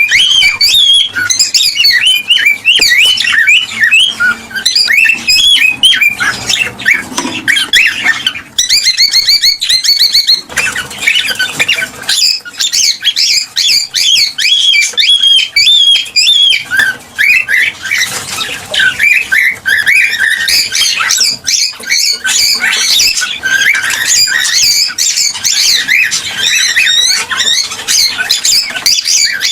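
Cockatiels chattering, whistling and squawking without a break, many quick calls overlapping, with a burst of fast repeated notes about a third of the way in.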